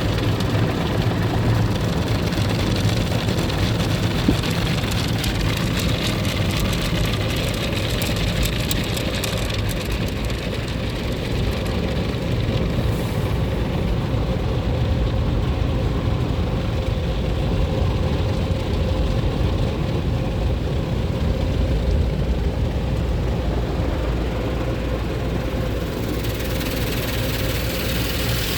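Automatic car wash cloth brushes ("whackers") slapping and scrubbing over the car body with water spraying on it, heard from inside the car's cabin over a steady low hum, with a patch of rapid pattering a few seconds in.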